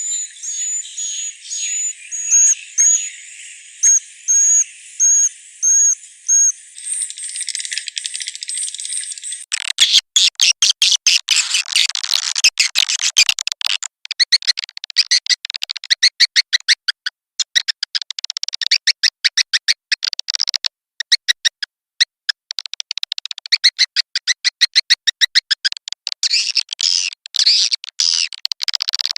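Edible-nest swiftlet calls from a birahi lure recording: a high chirp repeated about twice a second, then, about a third of the way in, a dense rapid twittering of many birds.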